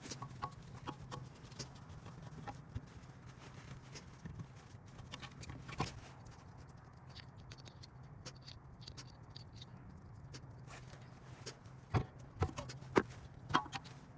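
Scattered clicks and knocks of hand work on a rear brake caliper, with four sharper knocks close together near the end, over a steady low hum.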